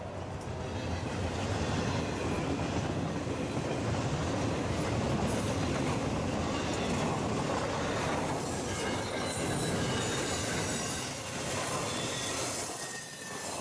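Double-stack intermodal freight train's container well cars rolling past: steady rumble and wheel-on-rail clatter, with a high, thin wheel squeal joining in from about halfway. The rumble thins out near the end as the last cars go by.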